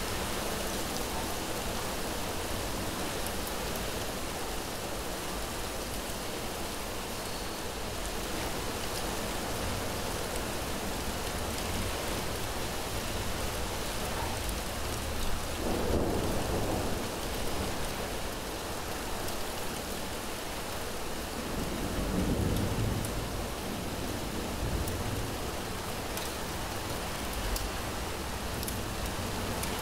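Steady heavy rain falling, with two short low rumbles of thunder, the first about halfway through and the second some six seconds later.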